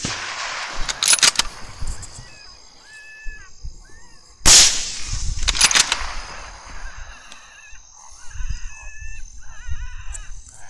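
A rifle shot about four and a half seconds in, its report echoing away over a second or two, while the echo of an earlier shot is still fading at the start. A few sharp clicks follow about a second after each shot. From about two seconds in, short wavering high-pitched calls come and go.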